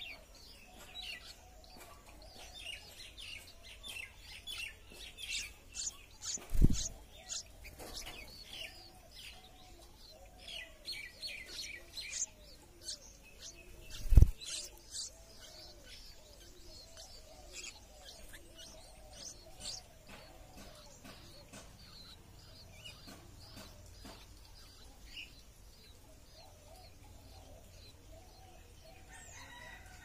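Red-whiskered bulbul nestlings giving rapid, high begging chirps while being fed at the nest, thickest in the first half and thinning out later. Two loud thumps, about six and a half and fourteen seconds in, are the loudest sounds.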